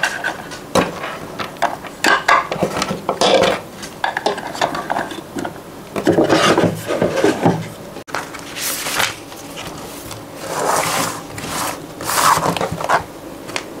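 Close-up handling sounds at a wooden desk: cables and a plug charger rubbing and knocking as they are packed into a small wooden drawer. Near the end, a spiral notebook is set down and slid on the wooden desktop.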